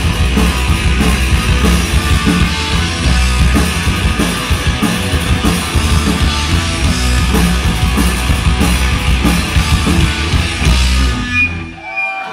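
Punk band playing live: electric guitars, bass and drum kit at full tilt, stopping abruptly at the end of the song a little before the end.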